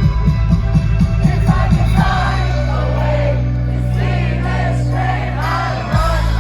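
Live indie rock band playing loud through a venue PA, with a sung vocal line. The drums hit densely for about two seconds, then the band holds long low chords under the singing, with a new hit and chord near the end.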